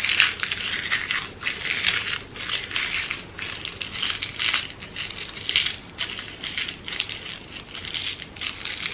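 Crepe paper being scrunched and crumpled in the hands: irregular crinkling rustles, one after another.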